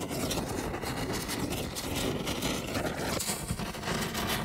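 A steady rushing, rumbling noise with no clear pitch, its low part changing about three seconds in.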